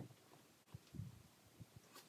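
Near silence, with a few faint, short low knocks around the middle.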